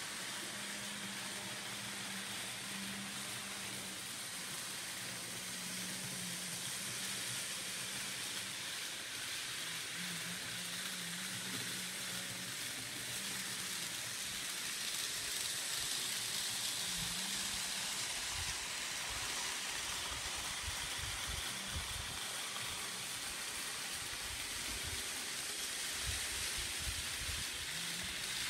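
N scale model train running on its layout track: a steady hiss with a faint, wavering motor hum. Irregular low rumbles come in from about halfway through.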